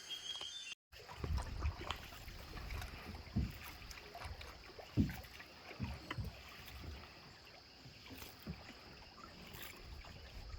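Canoe being paddled across a lake: irregular knocks and thumps of the paddles over a low rumble.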